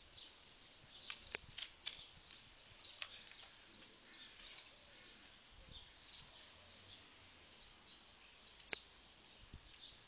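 Near silence outdoors: faint birdsong chirping on and off, with a few sharp clicks, the last near the end.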